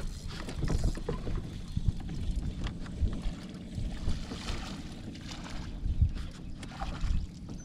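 Wind buffeting the microphone over the sounds of a bass being fought and reeled in from a small jon boat: a fishing reel cranking, with scattered knocks against the boat.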